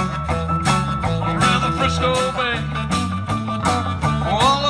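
Background music: an upbeat instrumental with guitar, bass and a steady drum beat.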